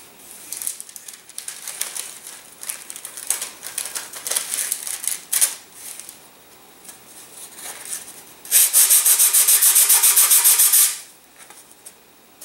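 Sandpaper scraping on balsa wood. First come scattered, uneven strokes. A bit over halfway through, about two seconds of fast, even back-and-forth sanding follows, the loudest part.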